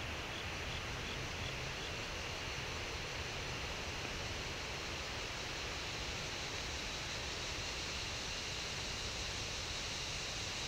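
Steady woodland background hiss picked up by a trail camera, with a steady high-pitched drone. There is a short run of about five faint chirps in the first two seconds.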